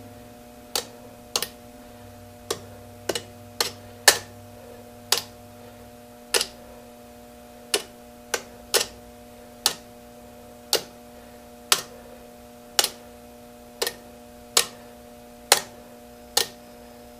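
Cable clamp tapped against a nail on the terminals of a 12 V NiCd drill battery pack, making a sharp spark click at each contact, about nineteen at uneven spacing, roughly one a second, over a faint steady hum. The pack is being zapped with short high-current pulses to try to rejuvenate the old cells.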